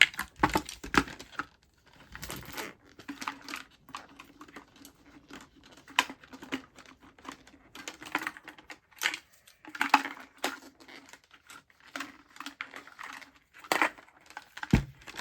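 Small school supplies such as pencils being handled and unpacked, making irregular light clicks, taps and rustles.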